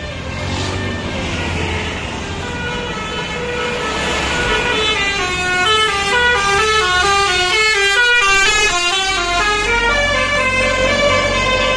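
A bus's Basuri telolet horn, a multi-tone musical air horn, plays a tune of short notes that step up and down in pitch. The notes grow denser and louder from about halfway through. A low bus engine rumble runs underneath.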